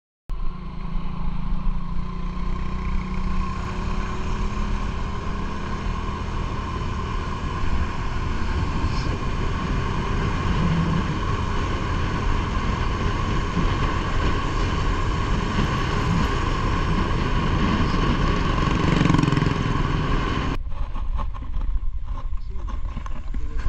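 Motorcycle engine running steadily under way, with wind and road noise. Near the end it cuts off abruptly to plain wind and handling noise.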